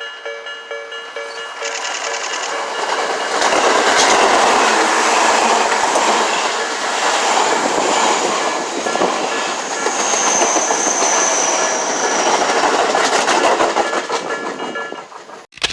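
Level-crossing warning bell ringing in a steady pulsing beat as a Tobu Tojo Line electric train runs over the crossing, its wheels clattering over the rail joints. A high wheel squeal sounds briefly about ten seconds in, and the sound cuts off abruptly at the end.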